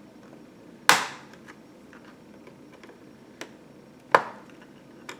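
Plastic retaining clips of a laptop's bottom panel snapping loose as the case is pried open: two sharp loud snaps, about a second in and about four seconds in, with faint plastic ticks between.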